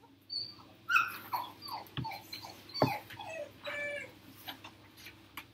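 A string of short, high-pitched animal cries that slide in pitch, bunched in the first four seconds, with two sharp knocks among them.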